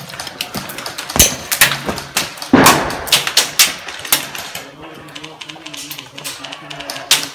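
Airsoft guns firing: an irregular string of sharp clicks and pops, with louder shots about one and two and a half seconds in.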